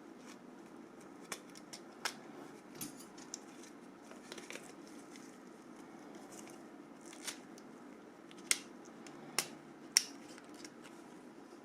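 Scattered small clicks and taps of plastic phone parts being handled and pried loose while a Nokia 5530 touchscreen phone is disassembled, with three sharper clicks in the last few seconds.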